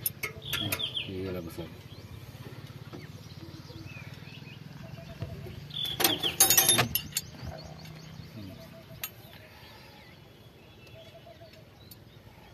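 Metal hand tools and tractor linkage parts clinking and clanking as they are handled, with a short cluster about half a second in and a louder, denser run of clanks about six seconds in. A low steady hum sits underneath and fades after about eight seconds, and birds chirp faintly.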